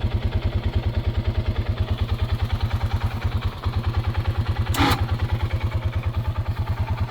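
Small engine idling steadily with an even, rapid beat. A single sharp clank about two-thirds of the way through.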